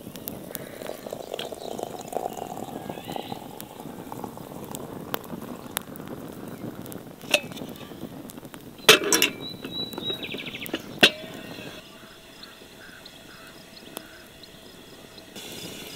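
Liquid poured from a kettle into a ceramic teapot, the pouring rising in pitch as the pot fills over the first few seconds. Several sharp clinks follow, the loudest about halfway through.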